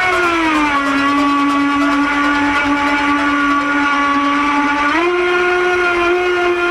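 Feilun FT011 RC boat's electric brushless motor whining steadily under throttle, its pitch dropping a little about half a second in and rising again about five seconds in as the throttle changes.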